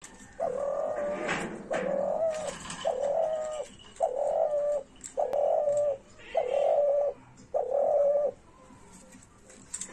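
Spotted dove cooing: a run of seven low coos, each just under a second long and about a second apart, stopping about eight seconds in.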